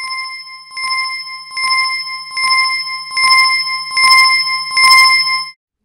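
A small bell dinging at an even pace, about once every 0.8 s, seven strikes that grow steadily louder before cutting off suddenly.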